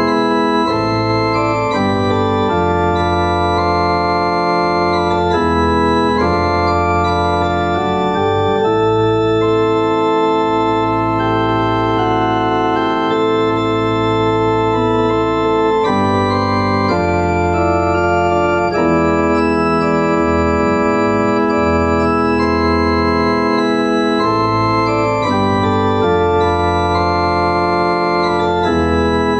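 Cathedral pipe organ played in full sustained chords over held low bass notes, the chords changing every second or two.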